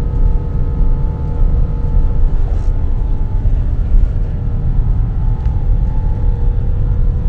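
Airliner cabin noise in flight: a steady low rumble from the jet engines and airflow, with a few constant humming tones over it.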